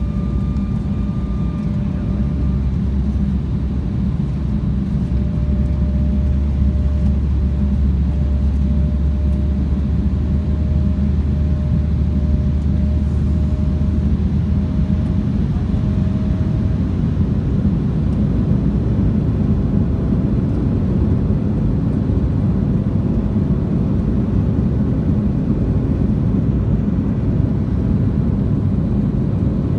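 Embraer 175's twin General Electric CF34 turbofans heard inside the cabin: a steady roar and deep rumble, with a faint engine tone rising slowly. The engines are a little louder from about five seconds in.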